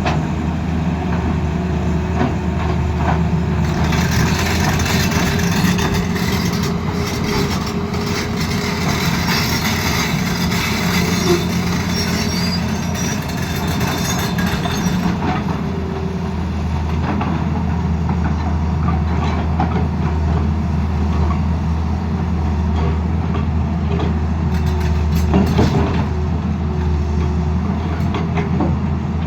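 Excavator's diesel engine running steadily, with a harsher, noisier stretch from about four to fifteen seconds in.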